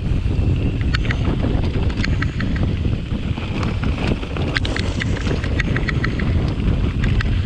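Wind buffeting the microphone over the rumble of mountain bike tyres on a rough, rocky dirt trail, with scattered light clicks and rattles from the bike.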